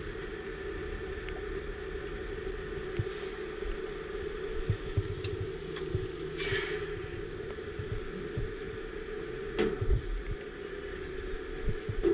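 Heavy truck engine running steadily to drive the crane boom's hydraulics during a lift, with scattered metallic clinks from the lifting chains. A brief hiss comes about six and a half seconds in.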